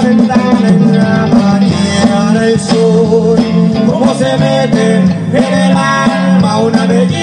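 Norteño band playing live: accordion over bass guitar, guitar, congas and drum kit, with a steady beat and bass line.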